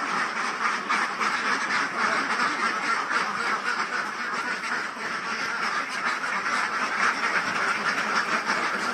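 A large flock of Pekin ducks quacking together, many overlapping calls in a continuous din.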